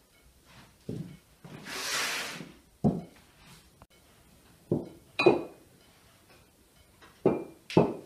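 Small drinking glasses and plates set down one by one on a cloth-covered table: about six short knocks and clinks, a couple of them ringing briefly like glass, with a rustle about two seconds in.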